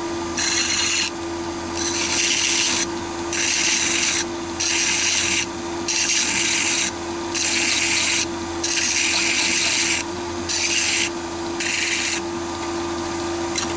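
Flat file stroked against a metal backplate spinning in a lathe chuck: a rasping hiss with each stroke, about ten strokes at roughly one every second and a half, over the steady hum of the lathe running at about 466 rpm.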